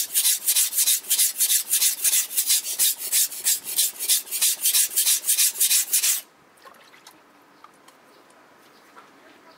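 Steel kitchen knife blade stroked back and forth on a wet whetstone: a gritty scraping at about three strokes a second that stops abruptly about six seconds in. After that only a few faint drips as the wet blade is lifted from the stone.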